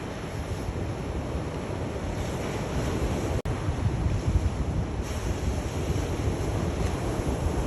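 Sea waves washing and breaking in a steady wash of surf noise, heavy in the low end. There is a split-second gap in the sound about three and a half seconds in.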